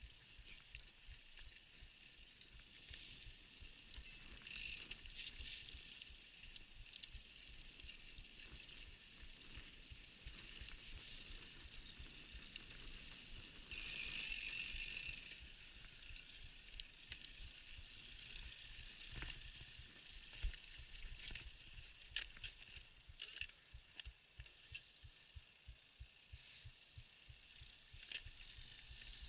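Scott Scale 960 mountain bike ridden over a rutted dirt track: tyres rolling on sandy soil, with the bike rattling and knocking over the bumps. A louder hissing stretch lasts about a second and a half midway, and one hard knock comes a few seconds later.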